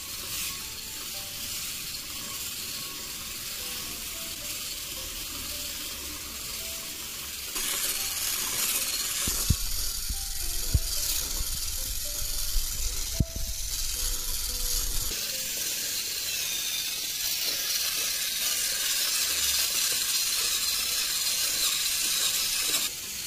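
Small wire hand whisk whipping instant coffee, sugar and water into foam in a glass bowl, a steady fast whisking that gets louder about a third of the way in, with a few sharper knocks. Faint background music underneath.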